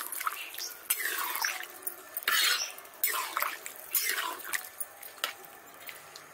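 A metal spatula stirring watery curry gravy in a steel kadhai, the liquid sloshing and swishing in a string of short strokes with the odd scrape against the pan.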